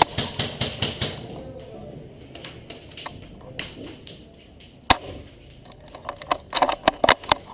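Airsoft guns firing: a rapid string of sharp snaps in the first second, a single loud shot about five seconds in, and a quick cluster of shots near the end.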